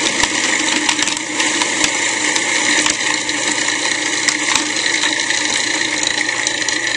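Cuisinart Pro Classic food processor running steadily, its blade chopping raw cauliflower, parsnip and almonds, with scattered ticks of pieces striking the bowl. The bowl is heavily loaded, so the processing is slow.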